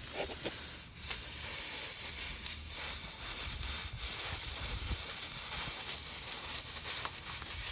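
Air hissing steadily out of a car tire's puncture hole as a plug-kit reamer is forced into it, with a few faint knocks from the tool.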